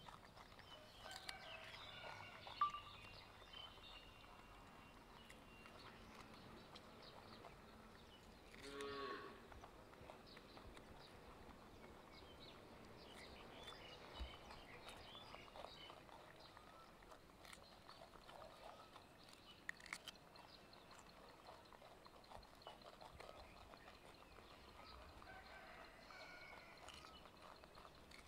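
Mostly near silence, with faint crunches and clicks from two baby macaques biting and chewing pieces of cucumber. There is one short animal call with a bending pitch about nine seconds in.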